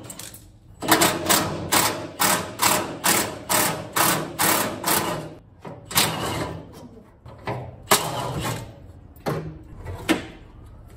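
Rhythmic clicking strokes from a hand ratchet undoing the front hood hinge bolts on a 1957 VW Beetle, about three a second for several seconds, then slower and sparser strokes as the last bolts come free.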